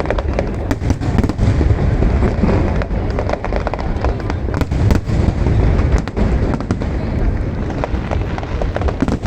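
Aerial fireworks bursting in rapid succession, a dense run of sharp cracks and bangs over a continuous deep booming rumble.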